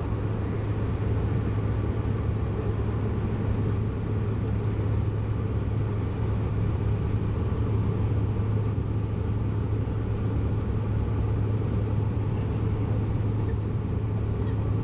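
Steady cabin noise inside a Bombardier CRJ900 jet airliner: an even rush of engine and airflow noise over a strong low hum, unchanging throughout.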